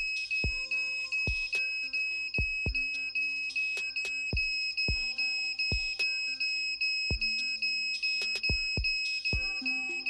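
A homemade smoke-detector alarm's piezo buzzer, driven by a 555 timer, sounds a continuous high-pitched tone because the alarm has been triggered. Background music with a steady kick-drum beat plays under it.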